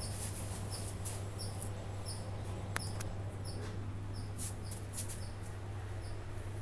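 A phone being moved about by hand, with rustles and a sharp click a little before three seconds in, over a steady low hum and a faint high chirp that repeats about twice a second.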